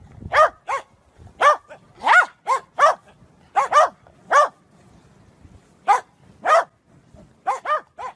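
A dog barking repeatedly, about fourteen short, sharp barks at an uneven pace, some in quick pairs, with a brief pause midway.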